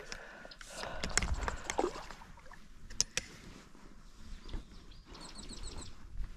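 Water splashing and knocks while a hooked largemouth bass is played in on a fishing rod, with a couple of sharp clicks about three seconds in and a short run of fast ticking near the end.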